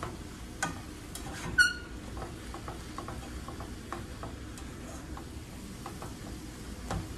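Chopped cabbage being stirred and turned with a spatula in a frying pan over the heat, with a low sizzle and scattered light scrapes and clicks. About one and a half seconds in, a short ringing clink stands out as the loudest sound.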